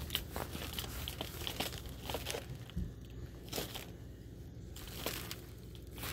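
Plastic wrappers of Oreo cookie packages crinkling and crackling irregularly as a hand handles them.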